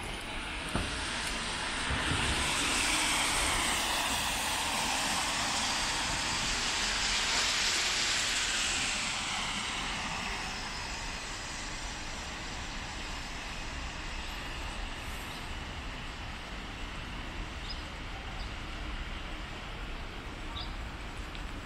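A vehicle passing on the wet road, its tyres hissing on the water as it swells over the first couple of seconds and fades out by about ten seconds in. Steady rain noise and street hum follow.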